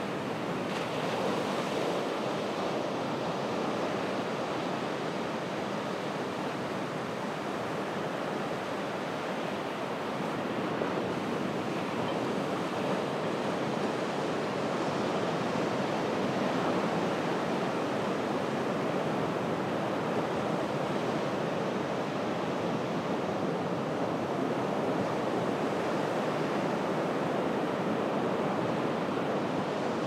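Ocean surf washing onto a low-tide beach: a steady, unbroken rushing wash that swells and eases gently, with no single wave breaking sharply.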